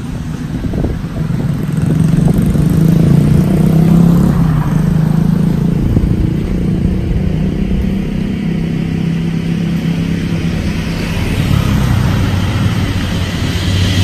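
A motor vehicle engine running close by, a steady low hum that swells about two seconds in and then eases, over street traffic noise.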